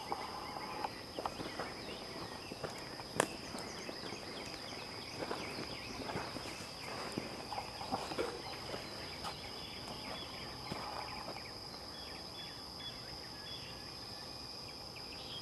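Faint rustling and crunching in dry leaf litter and twigs, like someone stepping through brush, with one sharp click about three seconds in, over a steady high insect drone.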